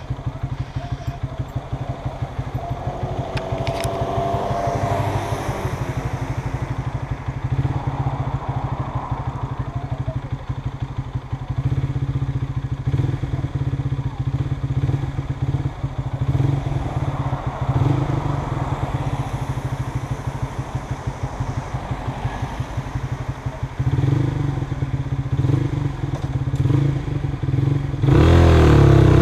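Honda CBR125R's single-cylinder four-stroke engine idling steadily at a standstill, then revving up about a second before the end as the bike pulls away.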